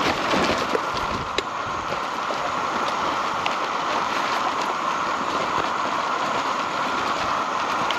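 Steady hiss of food frying over a gas camping stove, with a few small crackles.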